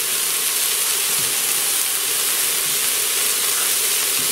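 Diced onion and green bell pepper sizzling in melted butter in the pot of an electric pressure cooker: a steady, even hiss.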